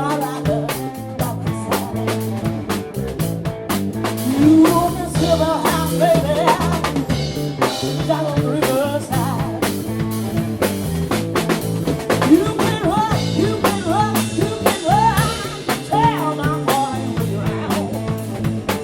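Blues band playing: drum kit with rimshots, a walking bass line and guitar, with bending melodic lines over the top.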